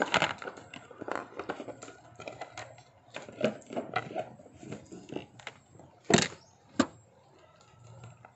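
Scattered clicks and knocks of things being handled, with two loud sharp thumps about six and seven seconds in.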